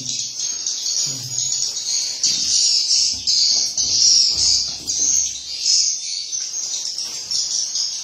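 Swiftlets chirping and twittering densely and without a break, high-pitched, with louder stretches about two to five seconds in.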